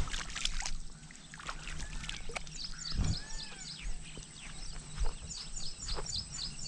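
Birds calling: a few arching whistled calls, then from about midway a quick run of short high chirps. Scattered knocks and rustles come from someone moving on grass close to the microphone.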